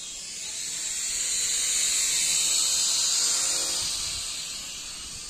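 Small quadcopter drone's propellers whining as it flies in close to the microphone. The high buzzing whine swells to its loudest about halfway through and fades again, with a lower hum sinking slightly in pitch as it passes.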